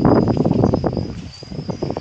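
Irregular crunching footsteps on trackside gravel ballast, loudest in the first second and thinning out after that, over a steady high-pitched whine.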